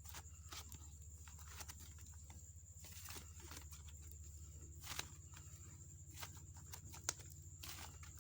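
Faint, irregular small clicks and crackles of slime being squished and handled, over a steady low hum.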